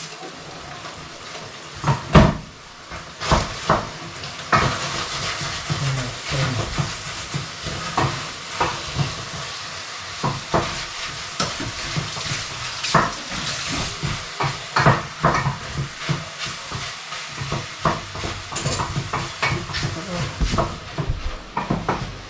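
Food sizzling in a frying pan while being stirred, a spoon knocking and scraping against the pan many times over a steady sizzle; the loudest knock comes about two seconds in.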